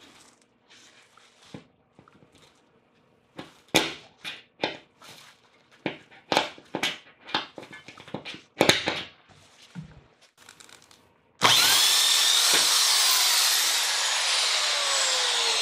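Several sharp taps and clicks, then, about 11 seconds in, a drill fitted with a hole saw and pilot bit starts up and runs loudly for about four seconds, boring into DensShield gypsum tile backer board, its pitch sinking as it goes.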